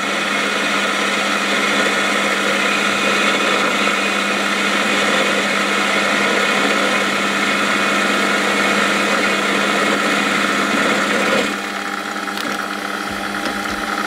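Metal lathe running, its turning tool taking a heavier skim cut on a slug of home-cast aluminium: a steady motor and drive whine with the hiss of cutting. The sound drops a little about eleven and a half seconds in while the lathe keeps running. The aluminium is cutting cleanly.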